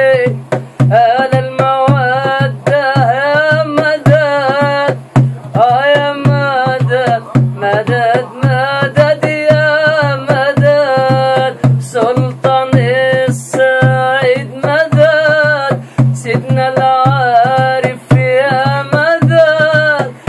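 A man singing a Sufi praise chant, with long ornamented, wavering held notes and a steady tapped beat under the voice.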